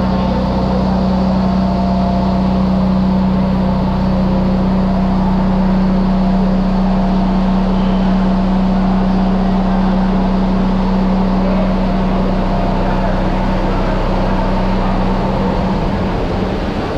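Steady loud machinery hum, a pump-like drone, with a constant rush of flowing water over it, the running noise of a water treatment plant's filter unit.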